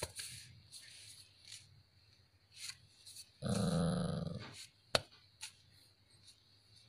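A puppy gives one low, drawn-out growl lasting about a second, a little past halfway through. A single sharp click follows just after it, with faint scattered ticks elsewhere.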